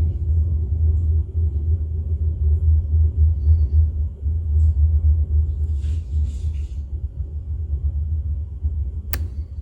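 Low rumbling handling noise from a padlock being worked with a lock pick and tension wrench. There is faint scraping about six seconds in and a single sharp click near the end.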